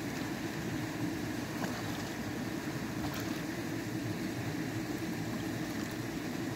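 Steady rushing background noise, with a few faint clicks as stones and sticks are handled.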